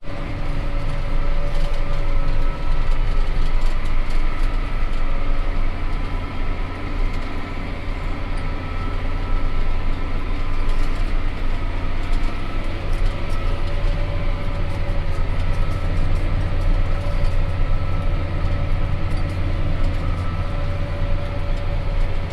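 Farm tractor running steadily, a low engine drone with a steady whine over it.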